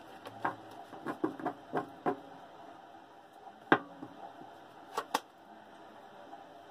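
A deck of tarot cards being shuffled and handled by hand: a scattered run of short card snaps and taps, with a sharper click near four seconds in and two quick ones about five seconds in.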